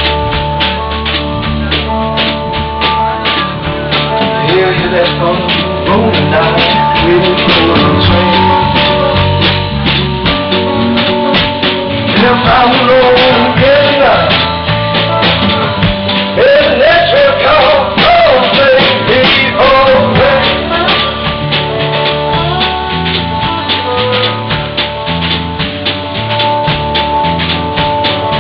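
Blues trio playing live: slide guitar played flat on the lap, over electric bass and a drum kit keeping a steady beat. Through the middle the slide glides up and down between notes in a solo line.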